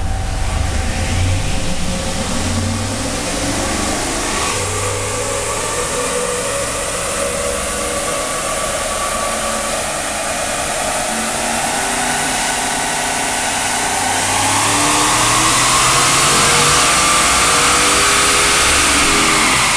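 Stock, naturally aspirated 5.7 L HEMI V8 with stock exhaust making a wide-open-throttle pull on a chassis dyno. The engine's pitch climbs steadily, gets louder about two-thirds of the way through and starts to fall near the end as the pull winds down. This is the second of three back-to-back passes, with heat building in the engine.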